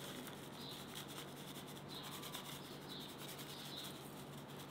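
Dry chicken seasoning shaken from a packet over raw chicken strips: a faint, steady rustle of the packet and fine granules scattering onto the meat.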